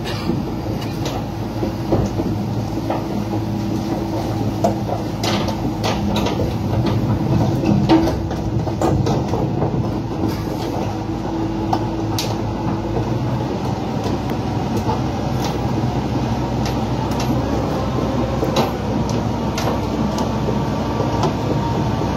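XCMG XE700D crawler excavator travelling: a steady heavy diesel engine rumble with irregular clanks and knocks from its steel tracks.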